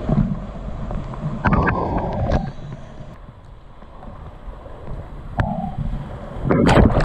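Rushing whitewater of a river in high flood around a kayak, with splashes from paddle strokes and waves, and wind buffeting the camera's microphone. Two loud surges of splashing, about one and a half seconds in and the loudest near the end as the kayak drops over a steep wave.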